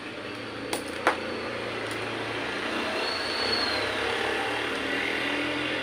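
Two sharp clicks about a second in, from a staple gun fastening a vinyl seat cover to a plastic motorcycle seat base, over a steady background rumble.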